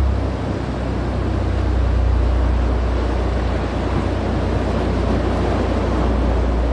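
Boat engines running through rough inlet water, a steady low rumble mixed with the wash of waves and wind on the microphone.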